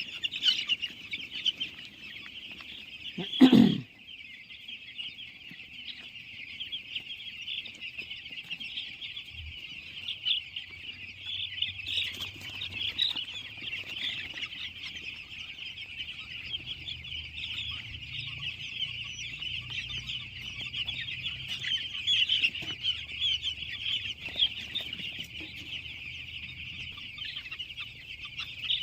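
A flock of chickens calling and clucking without a break, a dense high-pitched chatter. One loud thump about three and a half seconds in.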